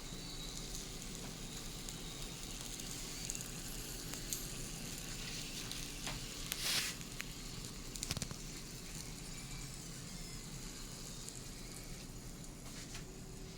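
Food sizzling with heat: a steady crackling hiss, with a few louder clicks and pops about halfway through.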